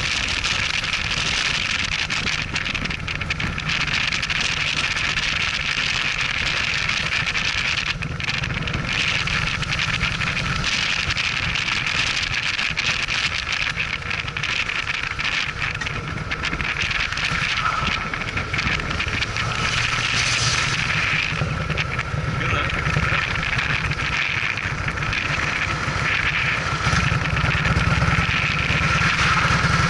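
Cruiser motorcycle riding steadily, its engine running under a constant rush of wind noise on the microphone, getting a little louder near the end.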